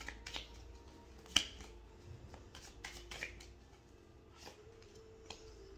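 A deck of oracle cards being shuffled and handled for the next draw: soft, irregular clicks and flicks of card stock, with one sharper snap about a second and a half in.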